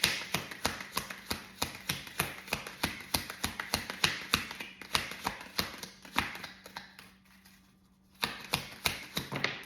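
A deck of tarot cards being shuffled by hand: a fast run of light card taps and flicks, about four or five a second. They stop for about a second around seven seconds in, then start again.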